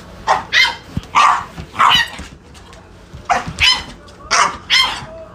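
Puppy barking: about eight short, high-pitched barks, most of them in quick pairs.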